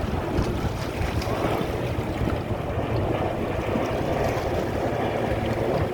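Steady rush of wind on the microphone and sea water, over a low, even hum typical of a boat's engine.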